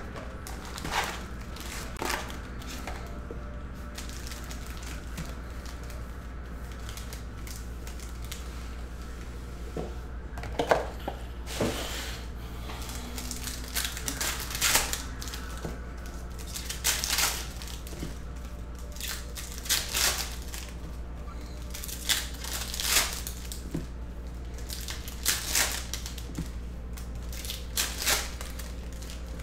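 Sports card packs being torn open by hand: plastic wrappers crinkling and cards rustling, in scattered short crackles over a steady low hum.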